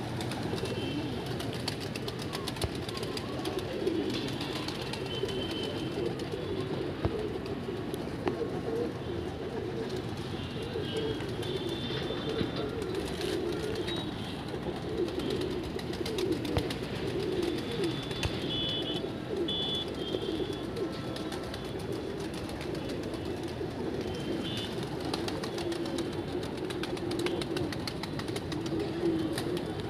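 A large flock of domestic pigeons cooing together in a dense, steady chorus, with the flutter of wings as birds take off and land. A few short high-pitched calls sound now and then.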